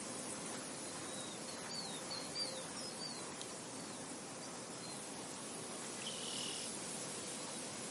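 Nature ambience: a steady hiss of wind and insects, with a run of short high bird chirps about one and a half to three seconds in and one longer bird note about six seconds in.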